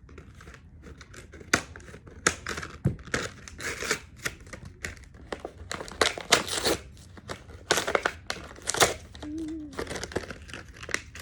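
Plastic packaging crinkling and tearing as a fidget toy is unwrapped by hand, in irregular rustles and sharp crackles.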